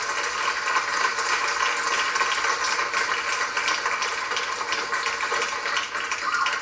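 Theatre audience applauding: a steady, dense clapping that drops away at the very end.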